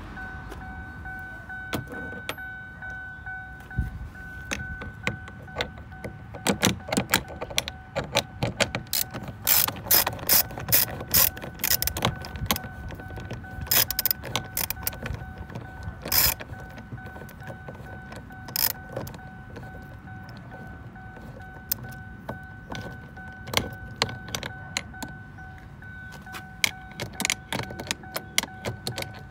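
Ratchet wrench with a socket on an extension turning out 10 mm bolts in a car door panel, clicking in quick runs, busiest in the first half. A faint steady high tone runs underneath.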